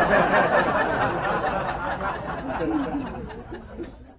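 Many overlapping voices chattering and chuckling, a murmuring crowd with light laughter.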